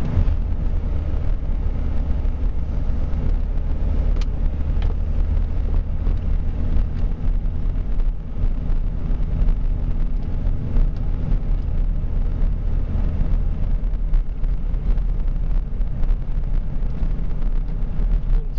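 A motor vehicle running steadily, a low engine rumble with a steady hum under a hiss, easing slightly about three-quarters of the way through.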